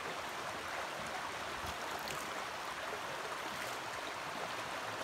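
Shallow rocky creek running steadily over stones, an even rush of flowing water, with a few faint clicks about two and three and a half seconds in.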